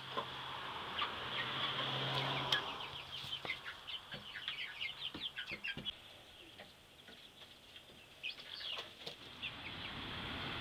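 Seven-week-old chickens peeping: a quick run of short, high cheeps, with a few more near the end, over a rush of noise in the first few seconds.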